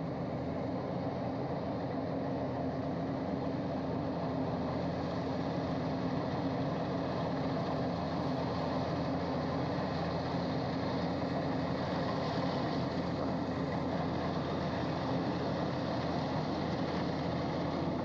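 Kubota DC105X combine harvester running steadily, its diesel engine and threshing machinery giving a continuous drone while it cuts standing rice, slowly growing louder as it comes closer.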